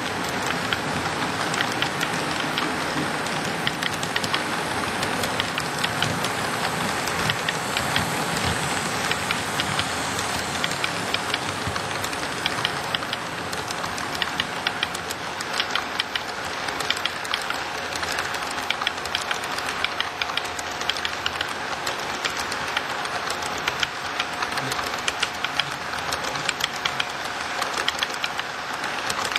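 Cars of a long model train rolling along the track: a steady rush of wheel noise with a dense, irregular run of small clicks from the wheels passing over rail joints.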